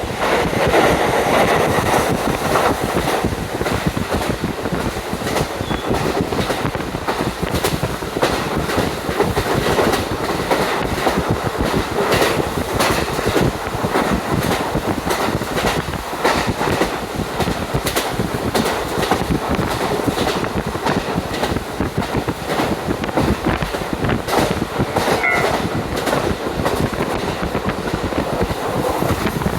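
Ride inside a JR Hokkaido KiHa 40 diesel railcar under way, with a window open: a steady rush of wind through the open window over the running train, and wheels clicking and knocking over the rail joints.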